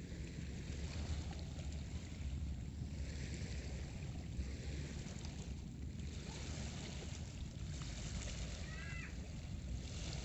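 Wind rumbling on the phone microphone over the wash of small waves on a pebble shore, with a short rising chirp about nine seconds in.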